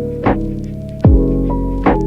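Instrumental background music: sustained keyboard-like chords over a steady beat, with a drum hit about every 0.8 seconds.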